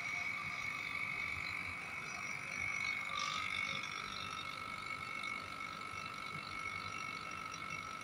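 Refrigeration vacuum pump running steadily while evacuating the system through the manifold gauge set, drawing out air and moisture: a constant high whine, with a second, lower tone joining about three seconds in.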